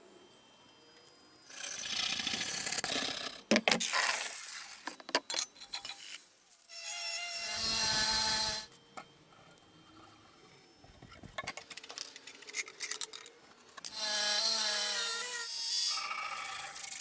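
Rusty axe being worked over with tools for restoration: bursts of rasping, scraping strokes of a couple of seconds each, some with a whining edge, separated by sharp knocks and clicks.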